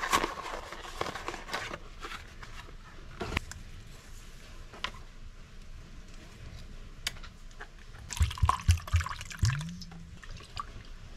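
Tabletop handling of clear plastic cups of dye and a squeeze tube of food colouring: scattered light clicks and taps with small liquid drips and splashes as colouring is squeezed into a cup. A few low thumps come about eight seconds in.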